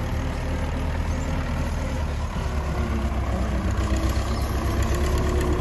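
Belarus 510 tractor's diesel engine running steadily under load as it pulls a laser land leveller through dry soil.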